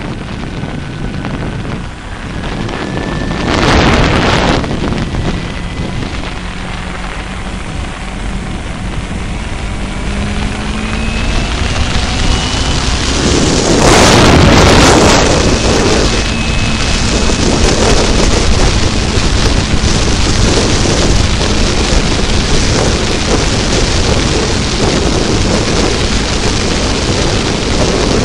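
Sport motorcycle engine accelerating, its pitch rising in steps as it goes up through the gears, then settling to a steady cruise, under heavy wind buffeting on the microphone. Loud wind gusts come about 4 seconds in and again around 14 seconds.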